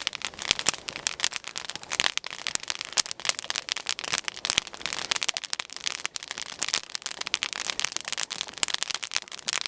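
Wood campfire crackling and popping close by, a dense, irregular stream of sharp snaps.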